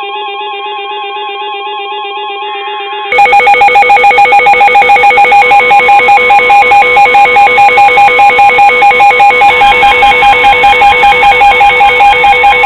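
Weather radio receivers sounding alert alarms for an incoming severe thunderstorm warning. It opens with a steady warbling alert. About three seconds in, much louder pulsing alarms cut in, about four or five pulses a second, over the long steady NOAA warning alarm tone.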